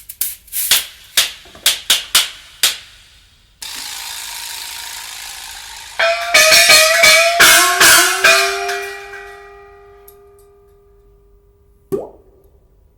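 A run of separate percussive sound effects. First come about a dozen sharp clicks or knocks, then a steady hiss for a couple of seconds. Next is a flurry of strikes whose pitched notes ring on and fade out, and a single struck note comes near the end.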